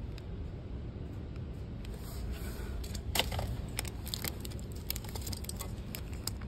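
Light clicks and crinkles of merchandise and packaging being handled, scattered through the second half, the sharpest a little after three seconds in, over a steady low hum.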